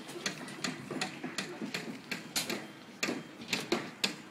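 Irregular sharp knocks and clicks from building work, several a second, some louder than others.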